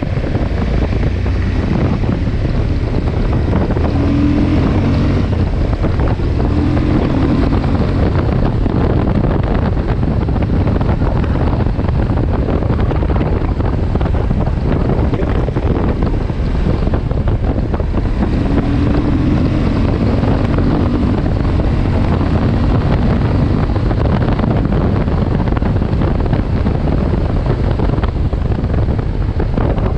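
Suzuki V-Strom motorcycle running on the move, under heavy wind rush on the microphone. A pitched engine note comes up out of the noise twice.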